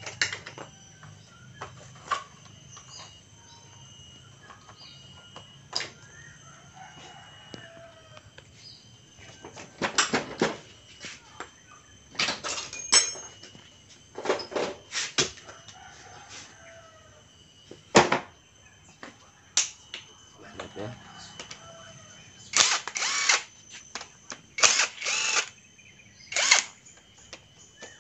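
Cordless impact driver working bolts on a Honda Supra Fit engine in short bursts of about half a second, in two clusters, one near the middle and one near the end. Sharp metal knocks and clinks of tools and parts fall between the bursts.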